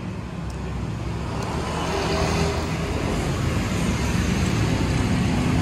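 Motor vehicle engine and traffic noise, steady and growing slowly louder.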